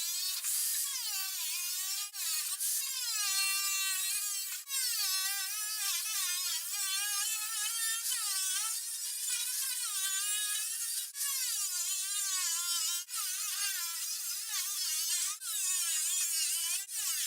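A 4½-inch angle grinder with a metal cut-off disc cutting, its whine wavering up and down in pitch as the disc is worked through the cut, with a few brief breaks.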